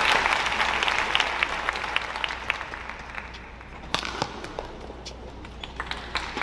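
Arena crowd cheering and applause dying away, then sharp racket strikes on a badminton shuttlecock, the loudest about four seconds in.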